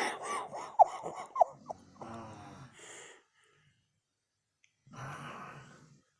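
A person snoring: a few short, squeaky whistling snorts in the first second and a half, then two drawn-out raspy breaths about three seconds apart with quiet between them.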